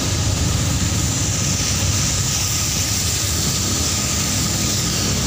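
Steady engine drone from a moving vehicle, with an even hiss of tyres and spray on a rain-wet road, heard from inside the open-sided vehicle.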